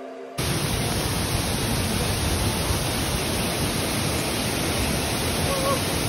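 Waterfall, its water rushing in a steady, dense hiss-like roar that cuts in abruptly about a third of a second in.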